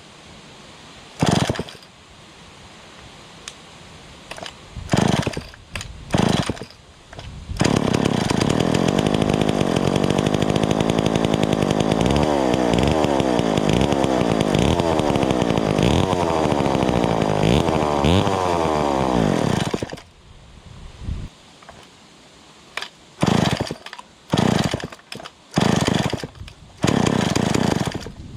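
Lombard AL42 two-stroke chainsaw, long out of use, being started: a few short bursts as it fires briefly, then it catches at about eight seconds and runs for about twelve seconds, revved up and down over and over, before it stops. Several more short bursts follow near the end.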